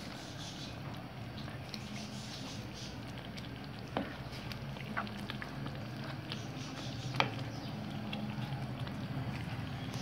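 Spaghetti being stirred through sauce in a nonstick pan with a plastic spatula-spoon: soft wet stirring with a few sharp clicks of the utensil against the pan, the loudest about seven seconds in, over a steady low hum.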